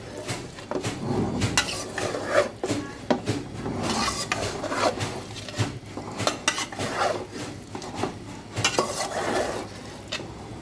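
Metal spatula scraping and clinking against an aluminium pot as thick marinated meat is stirred and turned to sauté it, with irregular knocks and scrapes throughout.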